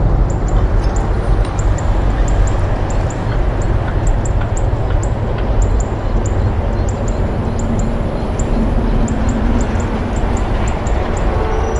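Steady low rumble of a motorbike engine running, mixed with wind noise. Short, very high chirps repeat irregularly above it, about three a second.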